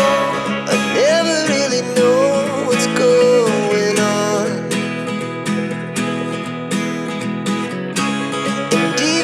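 Background music: a song with strummed acoustic guitar over a steady beat, a melody line gliding up and down above it.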